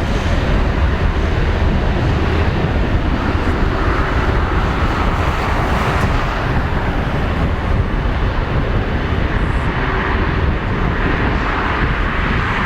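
Jet airliner engines at high power, a loud steady rumble with a roar that swells twice.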